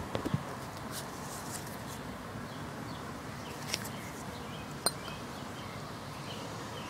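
A few short, light clicks of small metal parts being handled as a circlip is worked into the piston's pin bore, over a steady background hiss.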